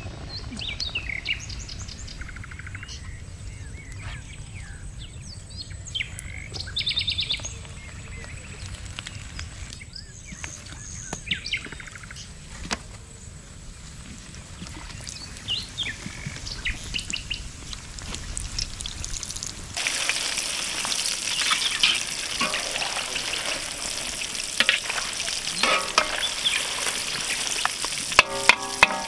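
Birds chirp now and then over a low steady rumble. About two-thirds of the way in, a loud hissing sizzle starts as batter-coated eggs go into hot oil in a kadai.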